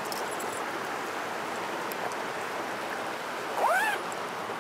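Steady rush of a mountain stream flowing over rocks, with a few faint clicks near the start and one short rising note about three-quarters of the way through.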